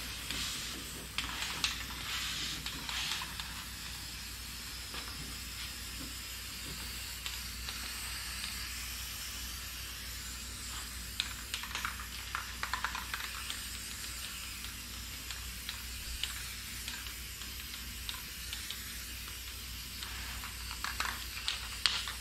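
Aerosol spray paint can hissing as paint is sprayed onto a car's bare steel floor pans, with a few light clicks and taps around the middle and near the end.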